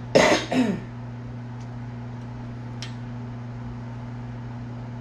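A man coughs, two quick bursts in the first second, over a steady low hum.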